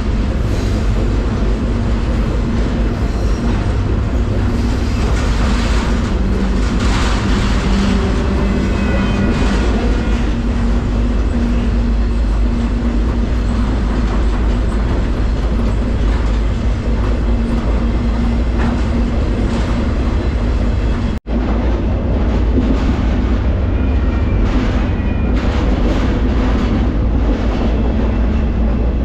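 Moving freight train heard from a rider on the end of a car by the couplers: a loud, steady rumble and rattle of wheels on rail, with faint high wheel squeals now and then. The sound drops out for an instant about two-thirds of the way through.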